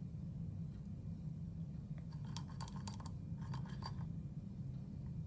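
Metal temperature probe stirring salted ice in a glass beaker: a run of gritty scrapes and light clinks against the glass from about two seconds in, over a low steady hum.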